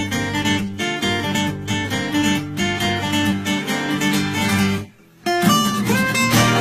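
Acoustic guitar playing a picked melody over low bass notes. The playing breaks off for a moment about five seconds in, then resumes.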